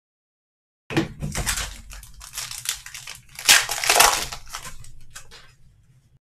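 Clear plastic wrapper of a Panini Optic basketball card pack being crinkled and torn open by hand. The crackling starts about a second in, is loudest in two sharp rips past the middle, and dies away near the end.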